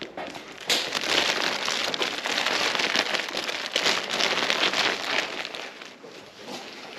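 Clear plastic flower wrapping crinkling and rustling as the bouquets are carried and handled. The crackle starts about a second in, runs on densely, and dies down near the end.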